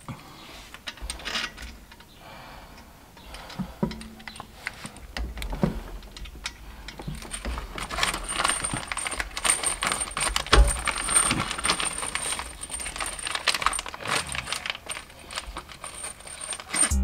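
Light metallic clicks, clinks and rattles of hand tools and fasteners as work is done on a car engine's intake manifold. They grow denser and louder about a third of the way in, and a thin high whine runs under them in the second half.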